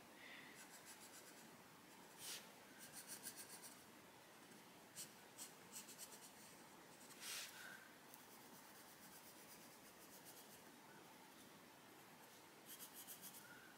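Coloured pencil (Arteza Expert) scratching faintly on colouring-book paper in quick short shading strokes, with a few sharper ticks between runs of strokes.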